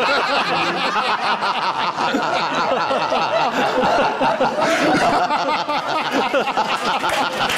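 Many people laughing together, an audience and a small group of men, with lots of laughs overlapping at once.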